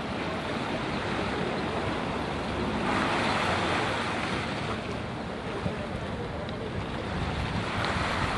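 Steady rushing wind and water noise at a harbour quayside, with wind on the microphone. It swells for about a second three seconds in.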